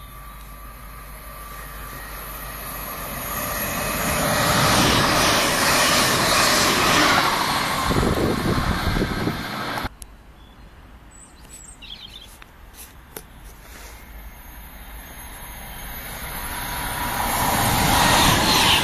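Train noise from high-speed trains on the line. One builds up over several seconds and cuts off abruptly about ten seconds in. Then a Class 390 Pendolino electric train approaches at speed, its rushing wheel and air noise growing steadily louder toward the end.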